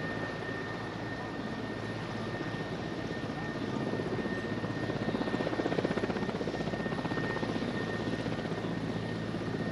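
Aircraft engine running steadily with a fast pulsing beat and a thin high whine, growing a little louder about halfway through.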